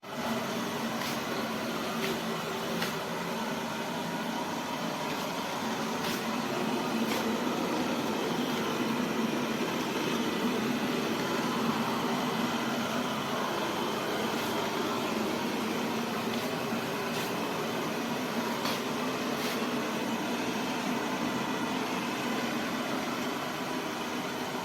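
Suction motor of the Ultenic D10 robot vacuum system running steadily. It starts suddenly, with a low hum under a strong rushing noise and a few faint ticks over it.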